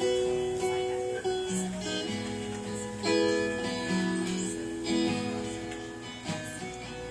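Acoustic guitar being strummed and picked in a slow introduction, held chords changing every second or so.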